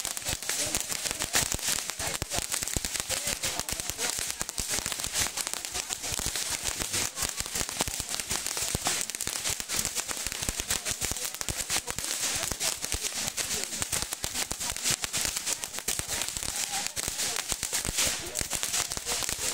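Several hand-held fireworks fountains on long poles spraying sparks, a continuous dense crackling hiss.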